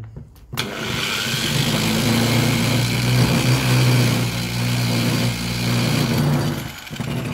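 An angle grinder rigged as a polishing machine starts up about half a second in and runs steadily. A small round mineral sample is pressed by hand onto its paper-covered disc for polishing. The sound grows quieter near the end.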